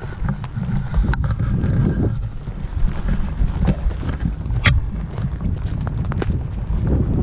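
Wind buffeting a GoPro's microphone: a loud, gusty low rumble, broken by a few sharp clicks.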